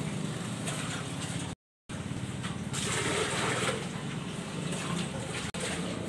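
Water running and splashing over dishes during hand dishwashing, a steady rushing hiss, with the audio cutting out briefly about one and a half seconds in.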